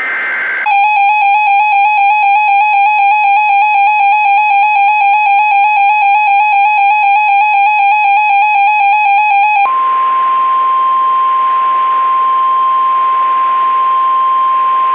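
The tail of a SAME digital header burst (two alternating warbling data tones) cuts off under a second in. A weather-radio receiver's alarm follows, a harsh pulsing beep several times a second for about nine seconds. Then the steady 1050 Hz NOAA Weather Radio warning alarm tone sounds over a light hiss for about five seconds, the signal that a warning broadcast follows.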